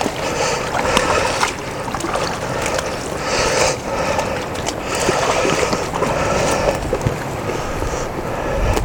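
Meltwater running and splashing along a small forest drainage ditch, with squelching steps and rustling through wet leaf litter.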